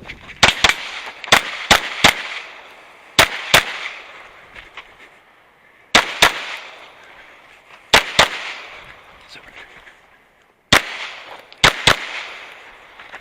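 Handgun shots fired in an IPSC course of fire, mostly in quick pairs with pauses of a second or two between groups as the shooter moves between targets, each shot ringing out briefly after.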